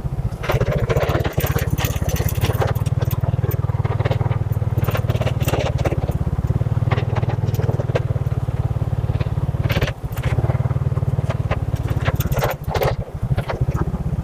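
Motorcycle engine running steadily while riding a rough, unpaved road, with frequent clatters and knocks from the road surface and the bike. The engine briefly drops off a few times.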